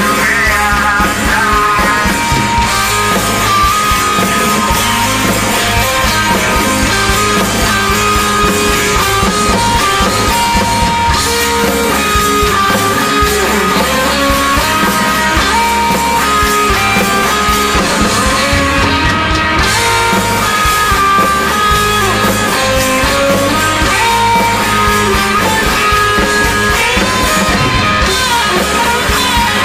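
Live rock band playing with electric guitars, bass guitar and drum kit, loud and continuous.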